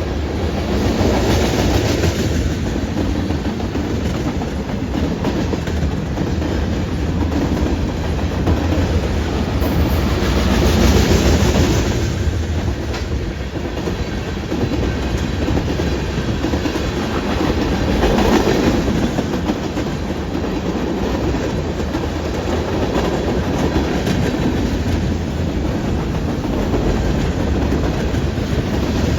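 Freight train cars rolling past at speed: a steady rumble of steel wheels on rail, with clickety-clack from the wheels crossing rail joints and a few louder swells as cars go by.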